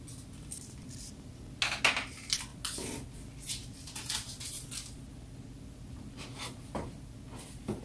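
Hands handling packaging and plastic accessory parts while unboxing: scattered clicks, taps and rustles, the loudest a cluster about two seconds in and another near three seconds, over a steady low hum.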